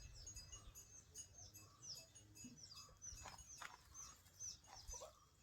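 Faint chirping of small birds: many short, high chirps that fall in pitch, repeated throughout.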